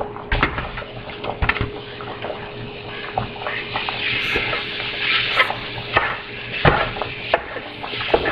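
Ground beef being stirred and broken up with a spatula in a frying pan with onions and garlic: irregular knocks and scrapes of the spatula against the pan over a frying sizzle that grows louder about four seconds in.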